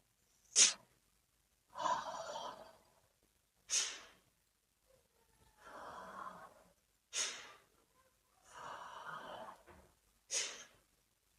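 One person doing the 'Sneezing Buddha' breathing exercise of Kundalini yoga. A drawn breath of about a second is followed by a short, sharp, sneeze-like blast of breath, and the cycle repeats about every three seconds, three times. The sharp blasts are the loudest sounds.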